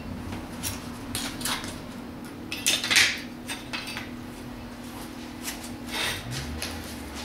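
Pieces of scrap steel clinking and scraping as they are handled and turned over, a few scattered knocks with the loudest about three seconds in, over a low steady hum.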